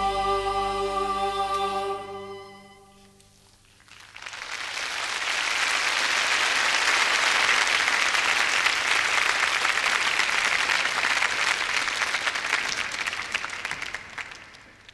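A boys' choir holds a final chord that dies away about three seconds in. The audience then applauds, and the clapping fades out near the end.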